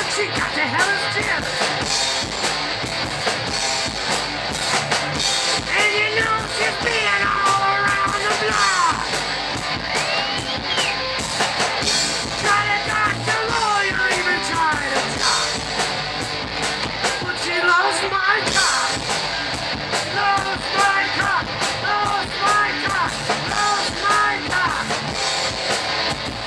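Live rock band playing loud: distorted electric guitars and a drum kit keeping a steady beat, with a lead line that bends up and down in pitch over them.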